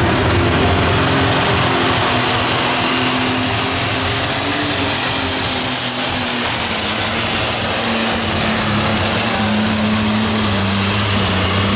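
Super stock pulling tractor's engine at full power, hauling a weight-transfer sled down the track; loud and steady, with a high whine that rises about two seconds in and then holds.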